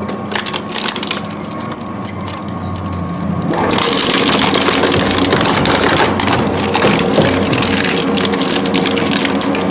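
Twin-shaft industrial shredder running with a steady hum. At first it gives scattered sharp clicks and knocks; from about three and a half seconds in, continuous cracking and crunching as its toothed rollers break up a hard plastic ride-on toy car.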